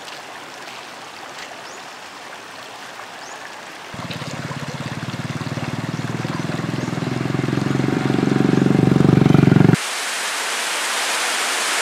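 River water rushing over rocks. From about four seconds a low, pulsing rumble swells louder, then cuts off suddenly just before ten seconds, leaving a steady, brighter hiss of fast water.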